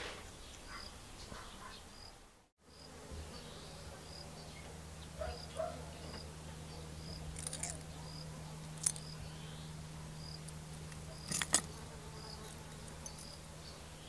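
An insect buzzing steadily from about three seconds in, with a faint high chirp repeating about once a second. Two sharp clicks come in the second half, the later one the loudest.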